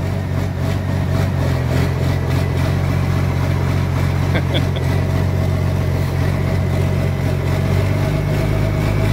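1971 Oliver 1855 turbo diesel tractor engine running steadily while it warms up after a cold start, with a faint high whine that climbs slightly toward the end.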